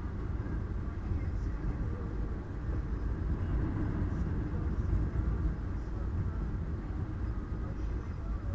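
Steady road and engine rumble of a car while driving, heard from inside the cabin.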